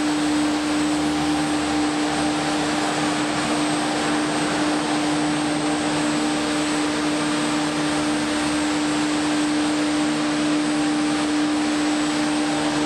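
Steady mechanical drone: one constant hum over a loud, even hiss, unchanging throughout and cut off abruptly near the end.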